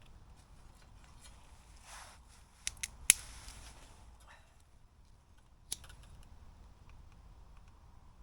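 Small pieces of cardboard and firewood being handled and laid in a small camp stove to start a fire: a soft rustle, then a few sharp clicks and snaps. The loudest snap comes about three seconds in, and a last one comes near the middle.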